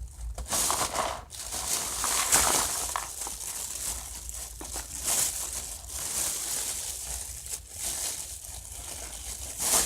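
Crinkly packaging (plastic or paper) being crumpled and handled, in irregular bursts of crackling rustle.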